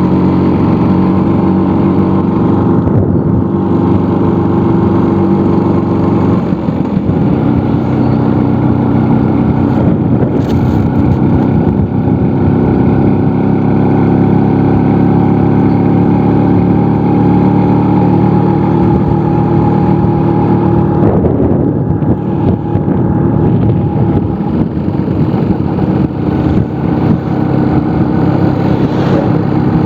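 Vespa scooter engine running steadily at a slow riding pace, its note shifting about seven seconds in and again around twenty-one seconds.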